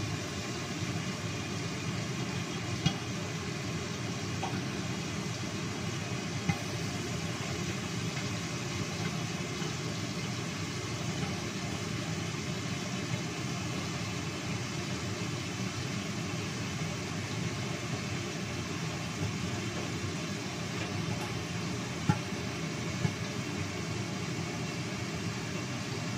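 A covered wok cooking on a gas stove burner: a steady hiss, broken by four short sharp pops.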